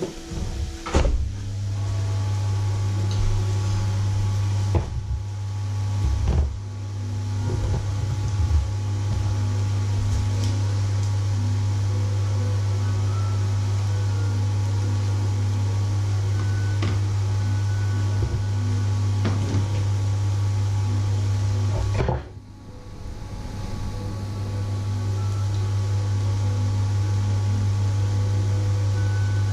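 A loud, steady low electrical hum under a light even hiss, with a few short knocks and clicks from handling bread rolls and utensils on the worktop. About two-thirds of the way through the hum cuts out suddenly, then builds back up over a few seconds.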